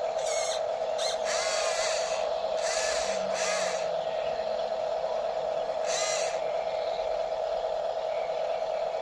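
Radio-controlled model excavator's electric drive running with a steady whine, with several short bursts of higher-pitched whirring as it moves.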